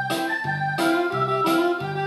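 Keyboard music starting suddenly, with new chords struck about every two-thirds of a second over a steady bass line.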